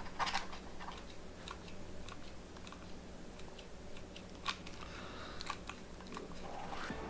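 Small irregular clicks and crackles of hands working a hot glue gun and elastic strap against a 3D-printed armor piece. A faint steady hum runs underneath, and one sharper click comes about four and a half seconds in.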